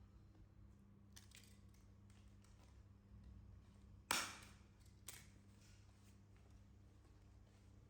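Near silence with a steady low hum, broken about four seconds in by one short, sharp noise that dies away within half a second, and a fainter one about a second later.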